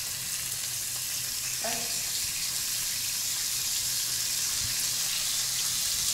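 Shrimp and squid sizzling steadily as they fry in hot oil in a pan.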